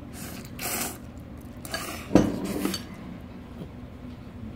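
Tableware being handled at the table: a few short scraping noises and one sharp knock of a dish or utensil about two seconds in.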